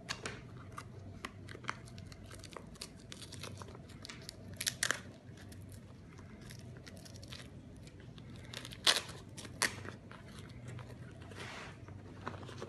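Crinkling and rustling of a foil-lined insulated pouch and plastic being handled, with scattered sharp crackles and clicks, a few louder ones near the middle; a faint low hum runs underneath.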